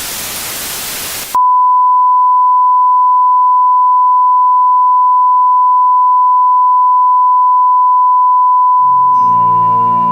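Loud static hiss that cuts off suddenly about a second in. It gives way to a loud, steady single-pitch broadcast test tone, the sign of a broadcast gone off the air. Piano music comes in near the end.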